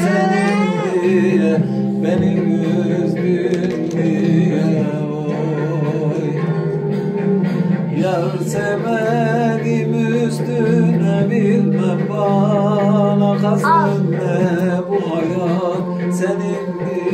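A man singing a slow, ornamented melody with wavering vibrato over steady backing music.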